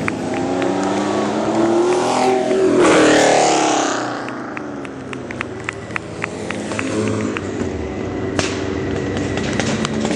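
Hill-climb race car accelerating hard out of a hairpin and passing close by, its engine note climbing then dropping as it goes past, loudest about three seconds in. Later another race car's engine comes up the road, with scattered sharp ticks.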